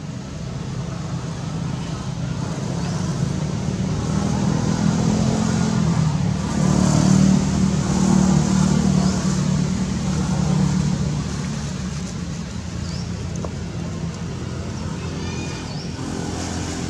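A motor vehicle's engine running nearby, a steady low hum that grows louder around the middle and then fades as it passes.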